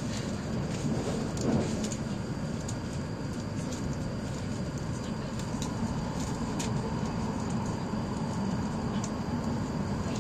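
Steady running noise of a Hokuriku Shinkansen bullet train at speed, heard inside the passenger cabin: an even low rumble and hiss, with faint ticks and a brief swell about a second and a half in.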